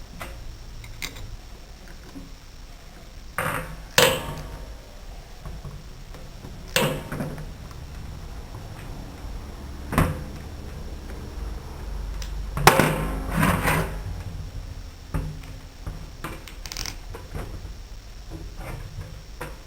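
Scattered sharp metallic clinks and knocks of hand tools and starter-motor parts being handled during reassembly, the loudest about four seconds in and a quick run of them near the middle.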